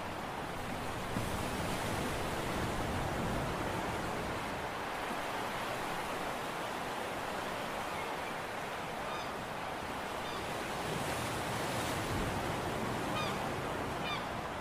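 Steady wind and sea-wave noise with no tones or knocks in it. A few short, faint bird calls come through around the middle and again near the end.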